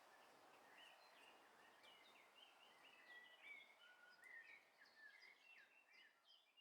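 Faint chorus of small birds chirping, many short notes sliding up and down in pitch, over a soft background hiss.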